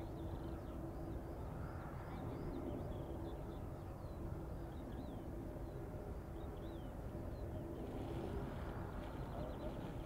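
Boeing 787-9 taxiing at low thrust: a steady low jet-engine drone with a held tone and a wind-like rumble. Small birds chirp over it in short, quick calls.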